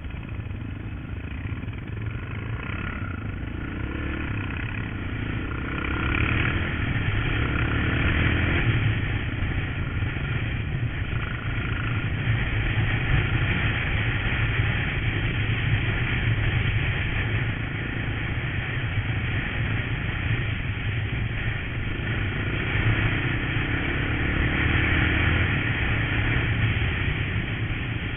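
Honda trail motorcycle's engine running as the bike rides along, its note rising under acceleration a few seconds in and again about three-quarters of the way through.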